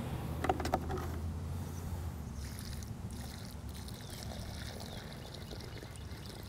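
Water pouring from a plastic bucket into a small hole dug in lawn soil, filling it for a drain test; the pour starts about two and a half seconds in. A few knocks from the bucket being handled come just before it.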